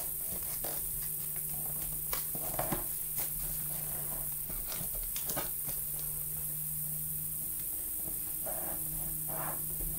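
Thin origami paper rustling and crinkling in scattered short clicks and scrapes as it is folded and creased flat by hand, over a faint steady hum.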